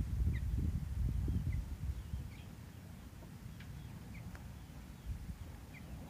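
A small bird giving short, faint chirps about once a second, over a low rumble that is loudest in the first second and a half.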